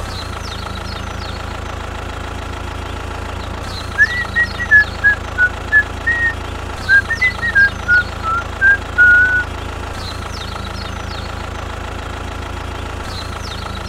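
A tractor engine running at a steady idle, with a short whistled tune of about a dozen separate notes rising and falling over it from about four seconds in until about nine and a half seconds in.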